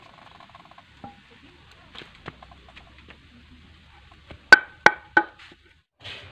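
Three sharp wooden knocks about a third of a second apart, each with a brief ring, from a wooden chopping block and bolo knife being knocked about; a few fainter taps come before them.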